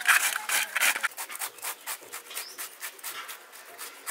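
Bottle gourd being grated on a stainless-steel box grater: quick rhythmic scraping strokes, about five a second, louder in the first second and softer after.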